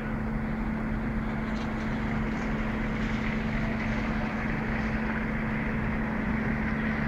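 Diesel engine of a truck-mounted mobile crane running at a steady speed, a constant hum with an even mechanical noise over it.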